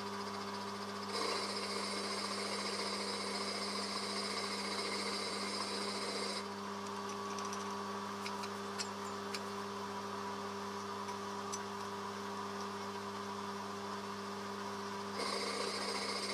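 Milling machine running, its 19 mm end mill cutting a recess into an aluminium motorcycle cylinder head: a steady motor hum with a higher cutting noise that comes in about a second in, drops away around six seconds, and returns near the end. A few light ticks fall in the gap.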